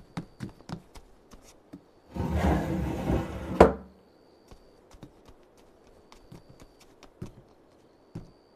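Scattered light taps and knocks. About two seconds in comes a rush of noise lasting about a second and a half, which ends in a sharp knock.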